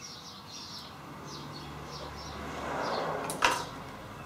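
A scraping rub that swells for about two seconds, then one sharp metallic clank a little past three seconds in, from hands working the head of a Grizzly G0704 mini milling machine as it is freed from its column. Birds chirp faintly in the background.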